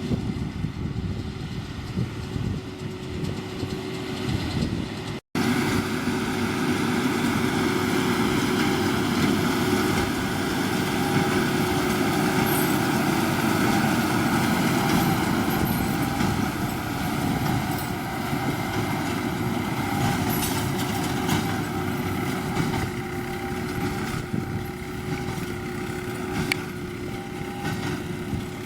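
John Deere 7530 tractor running steadily under load while driving a Massey Ferguson 2270 square baler, a continuous engine and machinery sound with a held whine. The sound cuts out for an instant about five seconds in, then carries on a little louder.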